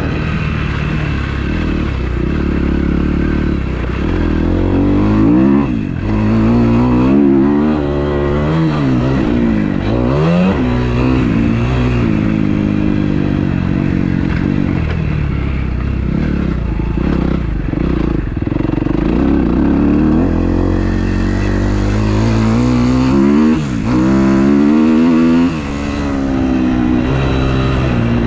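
2012 Kawasaki KX250F's four-stroke single-cylinder engine being ridden hard, revving up and dropping back over and over as the rider shifts and chops the throttle, with short dips where the throttle is shut.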